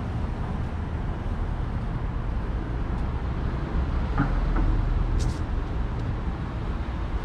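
Street traffic rumbling steadily, a little louder about four to five seconds in, with a short hiss just after.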